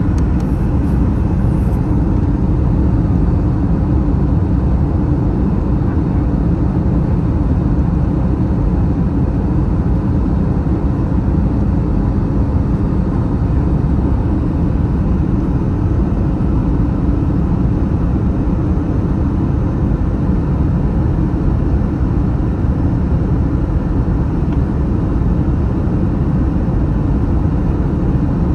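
Airbus A321 cabin noise: a steady low rumble of engines and airflow with a faint steady hum above it, unchanging throughout.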